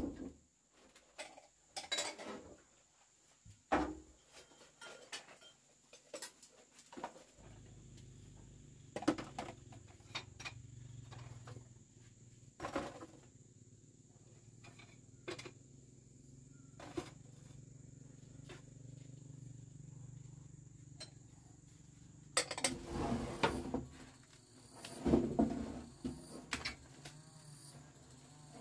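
Scattered knocks and clatter of building materials being handled and pulled apart during demolition, with a louder run of knocks near the end. A faint low hum comes in about a quarter of the way through.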